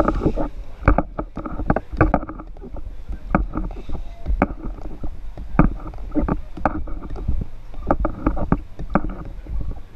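Action-camera handling noise: the camera housing knocks and rubs irregularly against gear, about one to two knocks a second, over a low rumble.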